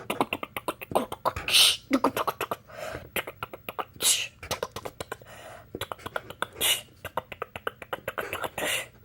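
A person beatboxing with the mouth: rapid clicks and pops, with a loud hissing burst about every two and a half seconds.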